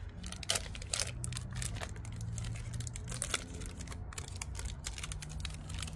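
Aluminium foil wrapper of a chocolate bar crinkling as it is unwrapped by hand: an irregular run of small crackles that keeps on throughout.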